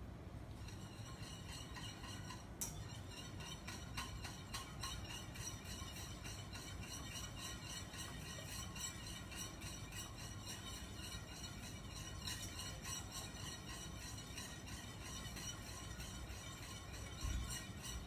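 Quiet background music with a steady, jingling bell-like beat.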